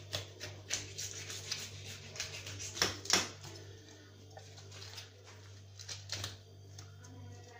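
Knife scraping scales off a carp, a quick series of rasping scratches with each stroke against the grain of the scales. The loudest strokes come about three seconds in, and they thin out to a few more near the end.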